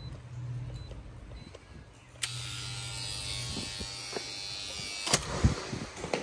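A small electric motor buzzing steadily for about three seconds, starting with a click and stopping with another click, followed by a low thump.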